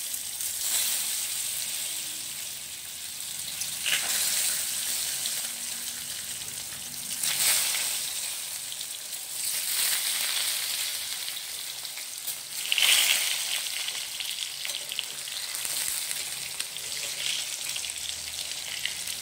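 Peeled hard-boiled eggs frying in hot oil in a kadai: a steady sizzle that swells louder several times as the eggs go in and are moved about.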